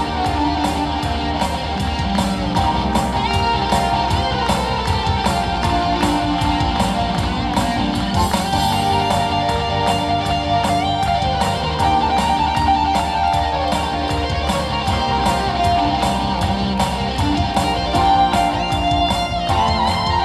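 Yamaha Electone electronic organ played live: an up-tempo piece with a steady, fast drum beat under a melody line.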